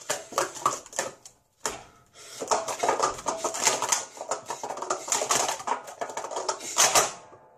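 Plastic speed-stacking cups rapidly stacked up and down on a mat, a fast clatter of light plastic clicks and clacks. There is a brief pause a second and a half in, then a long run of dense clattering that ends on a sharper clack shortly before the end.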